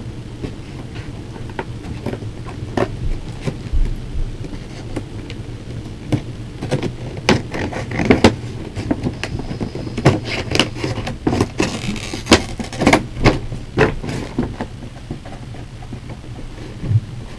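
Cardboard and plastic packaging of a boxed doll being handled and pulled at: irregular crinkling, crackling and tapping, busiest in the middle, over a steady low hum.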